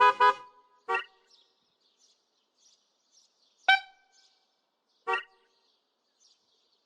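A few short cartoon car-horn beeps spaced out over several seconds, one of them about midway a sharper ping that rings briefly. Faint high chirping lies between the beeps.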